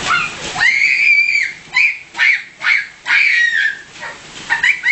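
A person's high-pitched squeals: a long cry, three short yelps, another long cry, and two quick ones near the end.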